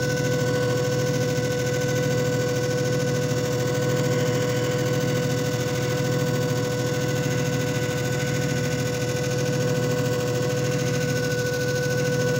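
JFJ Easy Pro disc repair machine running a cycle: its motor spins with a steady hum and a whine that holds one pitch.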